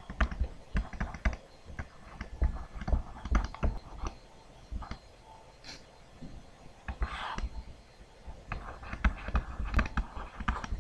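Irregular clicking and tapping of calculator keys being pressed as a sum is worked out, with a brief rustle about seven seconds in.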